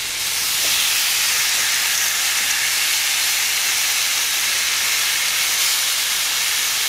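Marinated chicken breasts sizzling steadily in a hot, smoking cast-iron grill pan: an even, high hiss of oil and juices frying.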